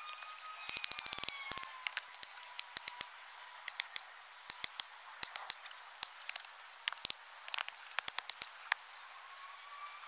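Faint, irregular sharp knocks and clicks as a wooden stake is worked and driven into the earth bank, some coming in quick runs about a second in and again around seven to eight seconds.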